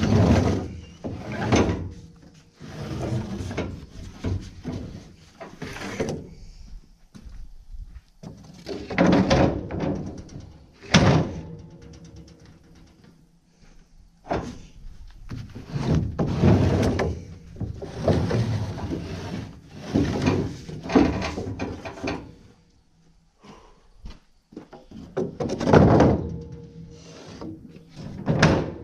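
Repeated knocks and rattles as material is handled and set down on a wooden trailer deck, coming in loud uneven bursts every few seconds.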